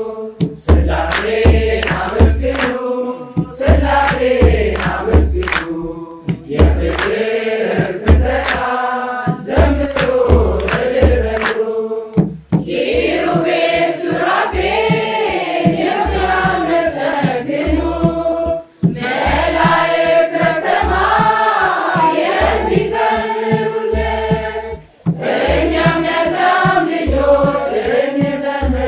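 Mixed choir of men and women singing an Ethiopian Orthodox hymn, accompanied by a kebero drum beating about once a second and by hand claps.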